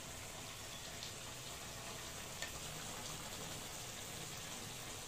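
Vegetables frying in a kadai on a gas stove: a steady, soft sizzle, with a light tap about two and a half seconds in.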